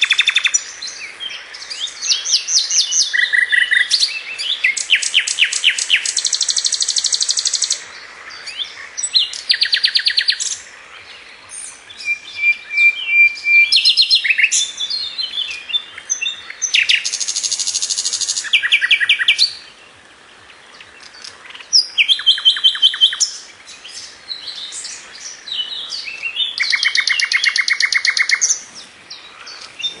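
A songbird singing loud phrases of rapidly repeated notes and trills, each lasting one to three seconds with short pauses between, one of them a held whistle. A steady hiss runs beneath the song.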